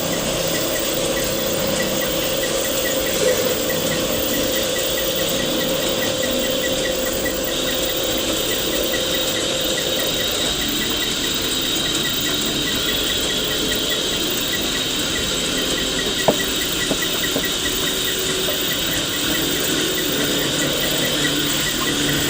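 Wood lathe running with a turning tool cutting the spinning wood: a steady hum and hiss with a high squeal, and a light, even ticking about four times a second.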